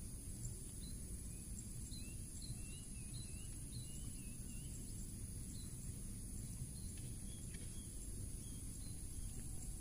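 Quiet outdoor ambience: a steady high-pitched insect drone over a low background rumble, with a few faint bird chirps, mostly a couple of seconds in.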